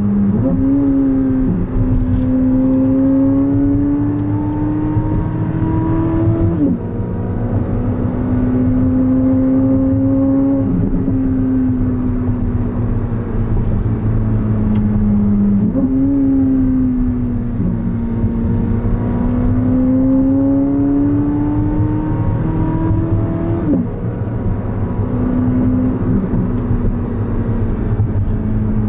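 Chevrolet Corvette C8 Z06's flat-plane-crank V8 pulling through the gears on the road. Its note climbs slowly in each gear, drops suddenly at upshifts about six and a half and twenty-four seconds in, and jumps up at downshifts, over a steady road rumble.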